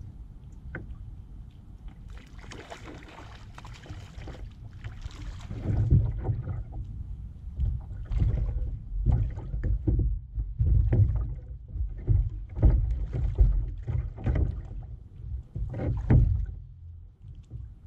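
Small waves slapping irregularly against an inflatable kayak's hull, with gusty wind rumbling on the microphone.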